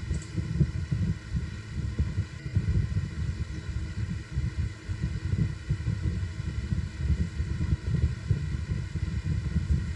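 Low, uneven rumbling background noise with a faint steady hum over it.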